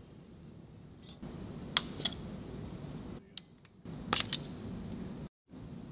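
A few sharp metallic clicks as turbocharger fittings and the removed exhaust-side adapter are handled: two about two seconds in and two more about four seconds in, over a low steady hum. The hum drops out briefly twice.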